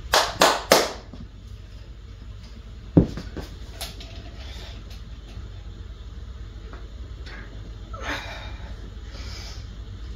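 Home-gym cable pulley equipment clanking as it is handled: three quick, sharp metal knocks in the first second, then a single hard knock about three seconds in.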